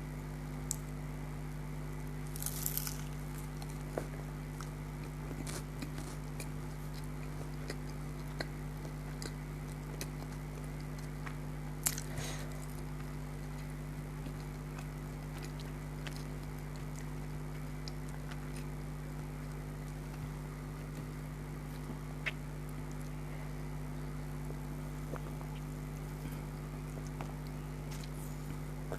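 A person chewing and biting food up close, with scattered soft clicks and a few crisp crunches, the clearest about two seconds in and again about twelve seconds in, over a steady low hum.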